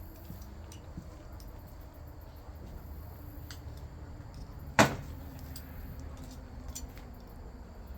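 A single sharp hammer blow on cold metal about five seconds in, among faint clicks of tools being handled.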